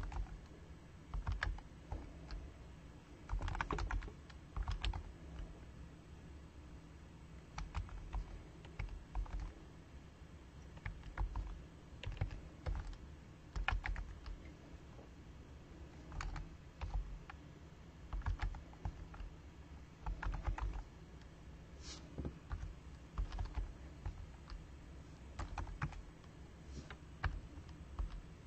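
Typing on a computer keyboard: short runs of keystroke clicks with brief pauses between them.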